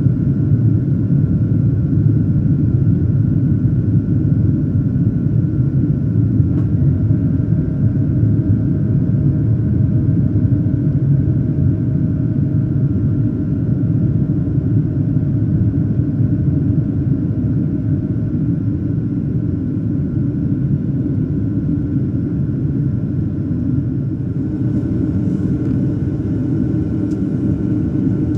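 Steady cabin noise inside a Boeing 737-800 in flight: a low, even rumble of the CFM56-7B jet engines and airflow, with a faint steady high whine over it.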